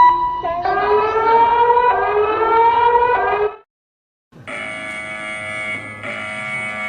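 Emergency alert alarm tones: a siren-like sweep rising in pitch that cuts off about three and a half seconds in, then, after a short silence, a steady harsh buzzing alarm tone that breaks briefly about every second and a half.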